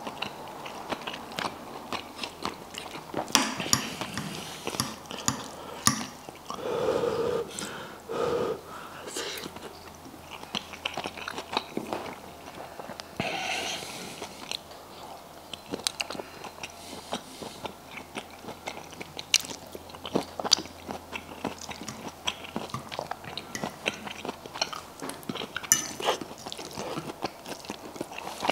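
Close-miked chewing and mouth sounds of a person eating pasta, with sharp clicks of a metal fork scraping and tapping the plate. Two short low hums come about seven and eight seconds in.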